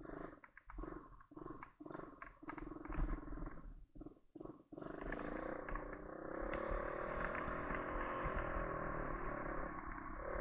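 ATV engine, revved in short uneven bursts with brief drops for about the first five seconds, then running steadily with its pitch slowly climbing.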